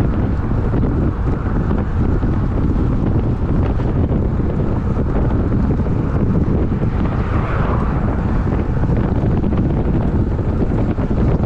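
Wind buffeting the microphone of a road bike riding at about 40 km/h: a steady low rumble with no let-up.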